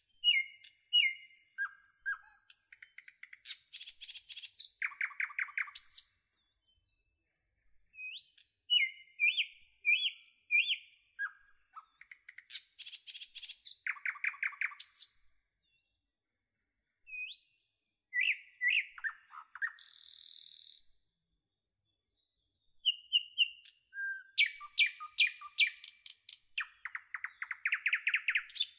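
A songbird singing four similar phrases of whistled chirps, quick trills and a buzzy rattle, with short pauses between them.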